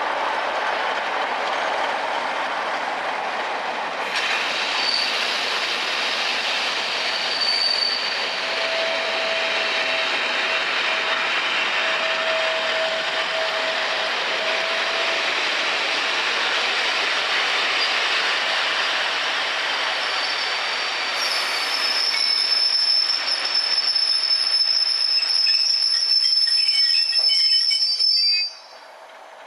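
Loco-hauled rake of passenger coaches running past close by, with a steady noise of wheels on rail. A held squeal comes in from about 8 to 15 seconds in, and a higher-pitched squeal near the end. The sound drops away suddenly shortly before the end.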